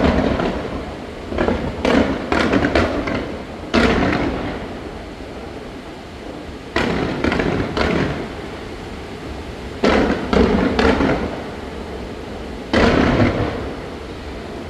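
Aerial fireworks shells bursting in a series of sharp bangs, some single and some in quick clusters. Each bang trails off in a rumbling echo.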